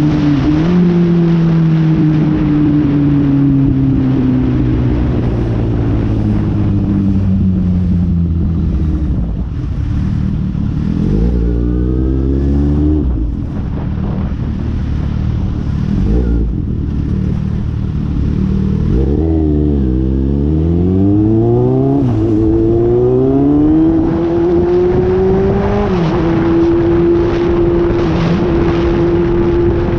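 Four-cylinder sport motorcycle being ridden, its engine note easing down for the first several seconds. It then revs up sharply, drops and climbs again as the rider accelerates, and settles into a steady cruise near the end. Heavy wind noise on the microphone throughout.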